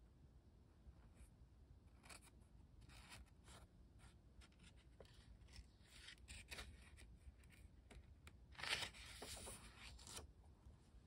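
Faint rustling of the paper pages of a small Pentalic 4x6 sketchbook being handled, with one longer, louder rustle near the end as a page is turned.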